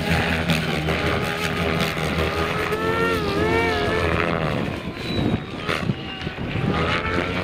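Goblin 700 electric RC helicopter in flight: the whine of its motor and main rotor, its pitch rising and falling as head speed changes, a wavering passage about three seconds in, then briefly quieter.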